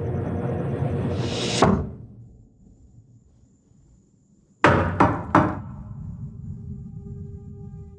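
A steady rushing noise swells and cuts off abruptly, then after a pause come three loud knocks on a door, followed by a low sustained musical drone.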